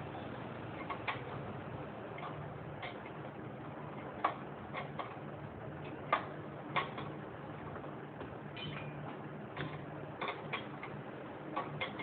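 Irregular sharp metallic clicks and light knocks from a hand tool working the exhaust-pipe nut of a Yamaha RX100 two-stroke as it is tightened, over a faint steady hum.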